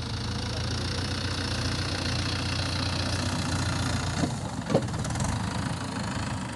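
Diesel tractor engine running steadily with a low, pulsing drone. The engine note shifts about four seconds in, with a brief thump.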